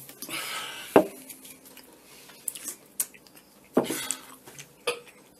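Aluminium drink can set down on a wooden table: a sharp knock about a second in, then a few lighter clicks and handling noises.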